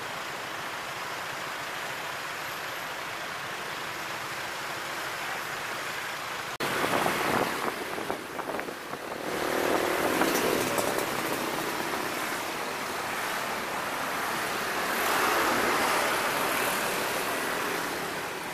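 Road traffic noise, a steady rushing haze of motor vehicles. About six and a half seconds in it breaks off abruptly and comes back louder and more uneven, with swells like vehicles passing close.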